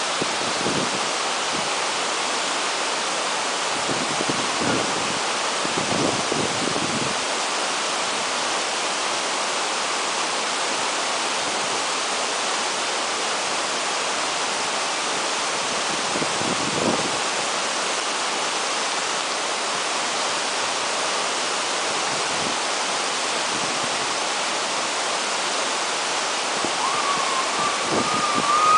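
Steady rushing of a waterfall. Near the end a high, wavering tone rises over it and grows louder.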